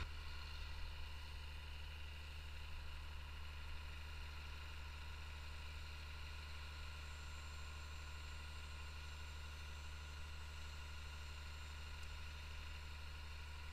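Faint, steady low hum with a light even hiss, unchanging throughout; no distinct sound events.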